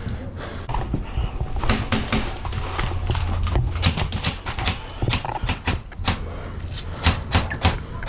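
Airsoft gun firing sharp, quick shots: a rapid run of about six a second around four seconds in, then a few spaced shots near the end, over a low rumble.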